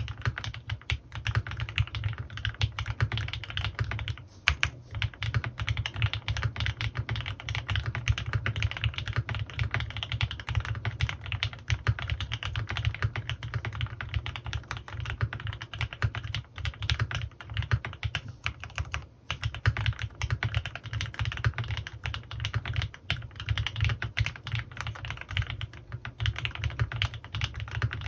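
Fast, continuous typing on a CannonKeys Rekt1800 custom mechanical keyboard with lubed Gateron Ink Black V2 linear switches and PBT keycaps: a dense stream of deep keystroke clacks, with short lulls about four and nineteen seconds in.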